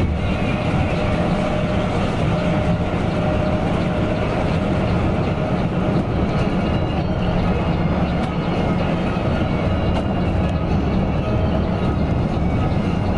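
Coach bus under way: a steady engine drone with road and rolling noise.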